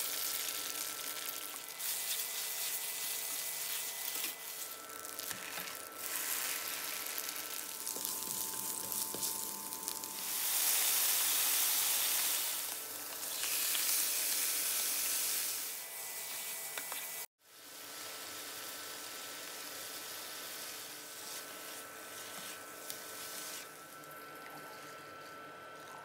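Oil sizzling in a non-stick frying pan as wide rice noodles, then prawns and squid, are stir-fried, heard in several short cuts and loudest near the middle. There is a sudden break about 17 seconds in, then a softer, steady sizzle, with a faint steady whine underneath throughout.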